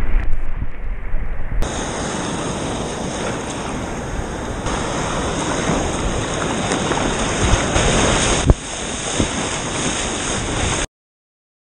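Sea water rushing and splashing against a paddled waveski, with wind buffeting the microphone. A sharp knock comes about eight and a half seconds in, and the sound cuts off suddenly near the end.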